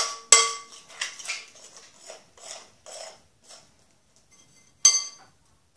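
Spoon knocking and scraping against a glass mixing bowl while stirring a glue-and-starch slime mixture. The clinks ring and come about twice a second, growing fainter, then one louder clink near the end.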